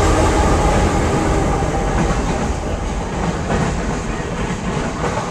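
Union Pacific freight train passing close by: the rear diesel locomotive goes past with wheels clicking over the rail joints, and the rumble fades as the end of the train moves away.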